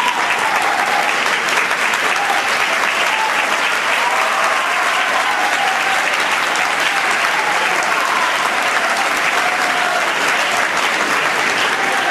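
Audience applauding steadily in a concert hall.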